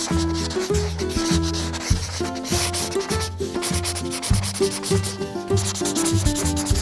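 Rapid rubbing strokes of a coloring-in sound effect, like a crayon scribbling on paper, over a light background tune with a plodding bass line.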